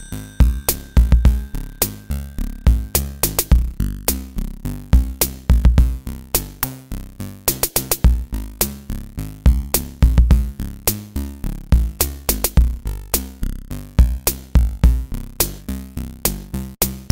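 Electronic background music with a steady drum-machine beat and deep bass.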